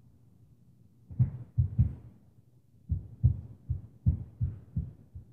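Heavy footfalls stomping on the floor of the apartment above, heard through the ceiling as muffled, low thuds: three in quick succession about a second in, then a run of about seven more at an uneven walking pace.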